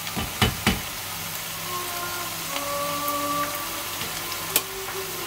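Food frying in oil in a pan, a steady sizzling hiss, with a couple of clicks in the first second and faint thin steady tones in the middle.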